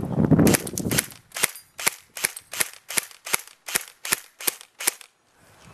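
A Crosman Pulse R-76 AK74-style airsoft rifle fired on semi-auto: a run of about ten sharp shots, evenly spaced at two to three a second, that stops about five seconds in.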